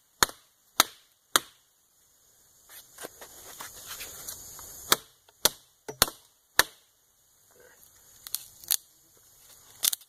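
A willow stick, sawn halfway through, being split apart by hand: a string of sharp cracks and knocks, with a softer stretch of crackling wood fibres between about three and five seconds in.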